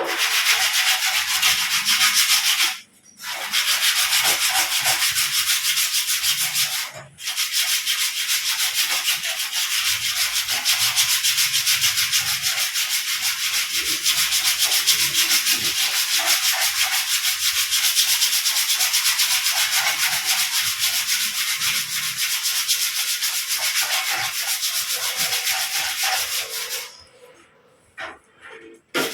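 Sanding paper rubbed back and forth over a repaired metal panel in quick, continuous strokes, smoothing the surface as the final step of metal-finishing a dent. The sanding stops briefly about 3 and 7 seconds in, and pauses again near the end.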